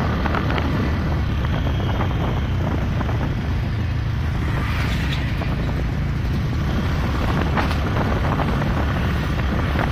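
Steady engine rumble and road noise of a moving vehicle, heard from on board as it drives along a road.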